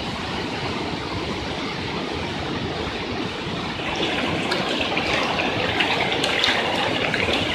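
Floodwater rushing through a street, a steady noisy rush. About four seconds in it turns brighter and a little louder, with scattered sharp ticks over the rush.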